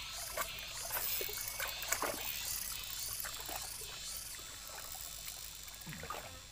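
Lakeside ambience: small waves lapping and trickling against shore rocks, with insects chirping high in a soft pulse about twice a second and a few light clicks.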